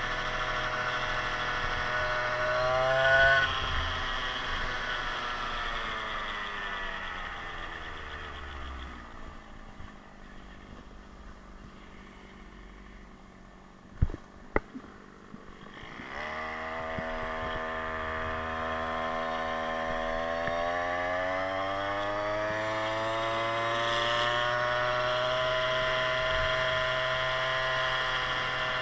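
52cc big-bore two-stroke scooter engine under way. It revs briefly about three seconds in, winds down to idle as the scooter slows, and two sharp knocks come near the middle. Then it climbs steadily in pitch as the scooter accelerates and holds at cruising speed.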